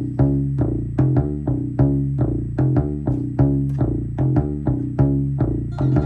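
Synthesizer playing a looping bass sequence: short, plucked-sounding bass notes in a quick, even rhythm, about two to three notes a second.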